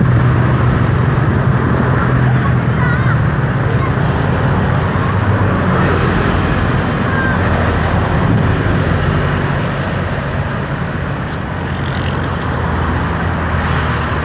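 Motor vehicle running steadily: a continuous low engine hum with road noise, easing off slightly near the end.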